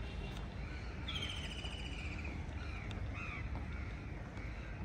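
Crows cawing in short repeated calls. About a second in, another bird gives one longer call, falling slightly in pitch. Under it all is a steady low rumble.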